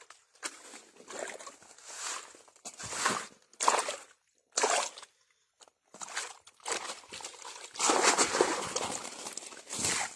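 Water sloshing and splashing in a series of irregular bursts as an eel trap is hauled and handled in shallow water, the longest burst about eight seconds in.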